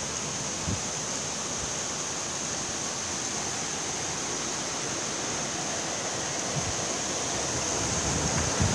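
Heavy rain pouring down, a steady hiss of rain falling on the buildings and street. A brief low knock under a second in.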